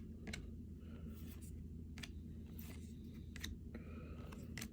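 Trading cards being handled and flipped through by hand: a few light ticks and soft sliding of card stock, over a steady low room hum.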